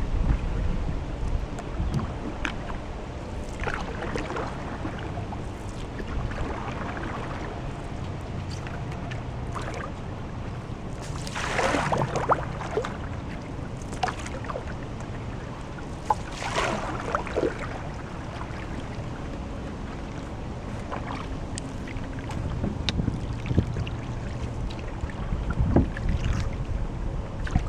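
Canoe paddle dipping and pulling through calm river water, with two louder swishes of water near the middle. Wind rumbles on the microphone at the start and again near the end.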